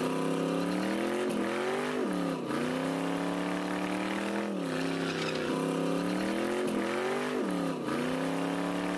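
Car engine held at high revs during a burnout, its pitch dipping sharply and climbing back about five times, over the hiss of a spinning tyre.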